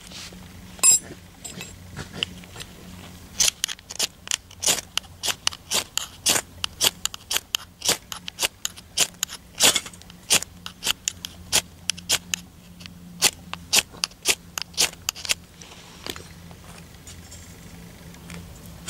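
A ferrocerium firesteel rod scraped hard over and over, a quick run of sharp scrapes about three a second lasting some twelve seconds, with one louder click about a second in. The sparks fail to light the Esbit fuel tablet.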